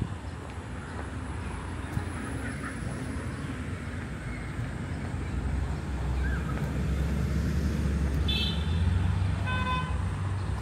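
Road traffic running past, its low rumble growing louder in the second half, with two short vehicle horn beeps near the end.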